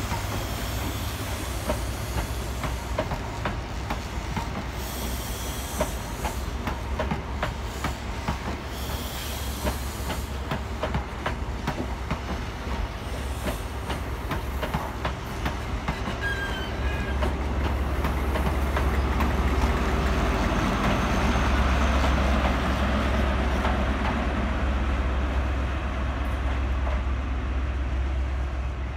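East Midlands Railway High Speed Train departing: its Mark 3 coaches clatter past with a steady run of wheel clicks over the rail joints and a brief wheel squeal about halfway through. In the second half a deep diesel engine drone grows louder as the rear class 43 power car passes.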